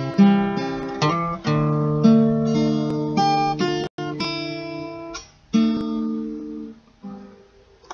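Acoustic guitar fingerpicked without singing, single notes and chords ringing out one after another as the song's closing bars, dying away near the end.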